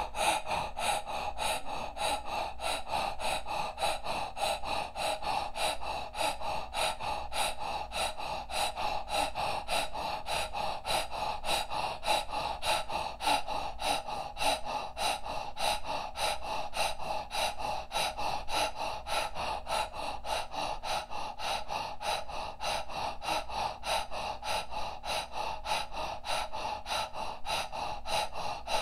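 A woman's rapid, rhythmic breathing through the open mouth, about three quick strokes a second, pumped in and out from the diaphragm as a breathing exercise.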